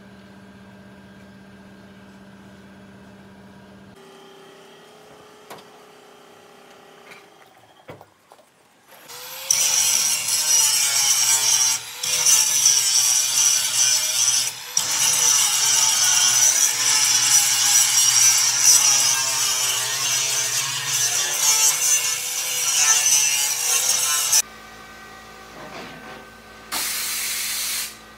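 Electric angle grinder (disc sander) worked over the welded steel floor plate of a truck bed, smoothing the weld seams before painting. It starts about a third of the way in after a faint steady hum, runs loud for about fifteen seconds with two brief breaks, and stops. A short hiss follows near the end.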